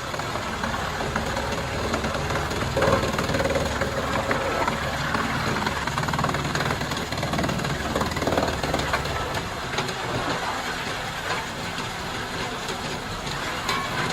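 Large forestry wood chipper running: a steady heavy engine and machine noise, busier for a few seconds in the first half, with occasional sharp cracks as wood is fed and chipped.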